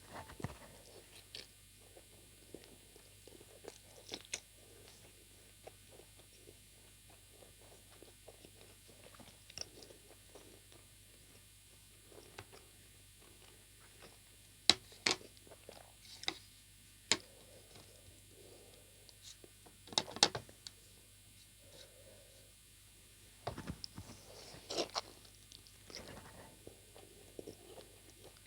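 Close-up eating sounds of chicken momos being chewed and bitten: soft wet chewing with scattered sharp clicks and smacks, loudest at a few moments midway and again near the end.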